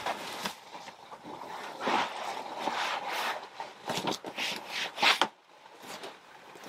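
A cloth rubbing and scrubbing over the fabric and vinyl of a sailboat's cockpit enclosure in a series of uneven wiping strokes.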